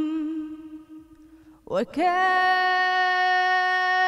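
A woman singing a Sufi song into a handheld microphone. A held note with vibrato fades out about a second in. After a short breath her voice slides up into a long, steady high note.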